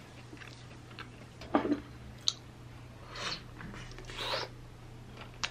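Quiet eating sounds: chewing, with sharp clicks of wooden chopsticks and dishes about one and a half and two seconds in, and two short breathy sounds later as a bowl is raised to the mouth.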